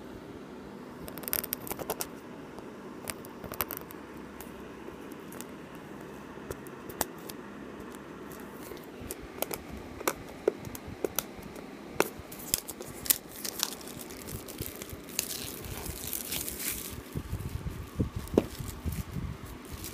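Plastic shrink-wrap being torn and crinkled off a sealed smartphone box, with scattered clicks and scrapes as hands handle the cardboard box; the crinkling is densest in the second half.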